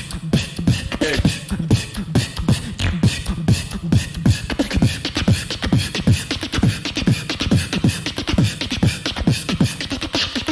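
Human beatboxing into a handheld microphone: fast, steady kick and snare sounds over a repeating bass note that slides down in pitch about twice a second.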